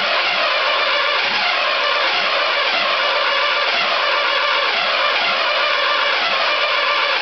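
Perkins 4.107 four-cylinder diesel engine in a Volvo T24 tractor running on its first start, with some air still in its newly built fuel system. The sound is loud and steady throughout.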